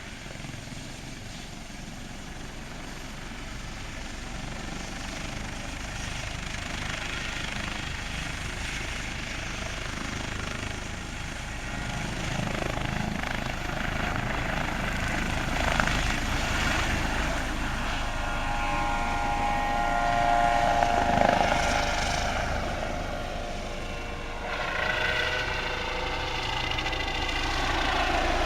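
Rescue helicopter starting up, its engine and rotor noise growing steadily louder. A rising whine comes in during the last ten seconds, climbing in pitch.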